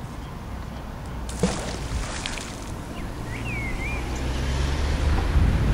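A thrown fishing magnet on its rope hits the water with a splash about a second and a half in, over the steady hum of an engine that grows louder toward the end. A bird chirps once briefly in the middle.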